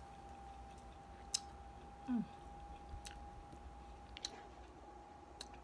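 Quiet chewing of food with a few sharp wet mouth clicks spaced a second or so apart, and a brief low falling hum of the voice about two seconds in. A faint steady high tone runs underneath.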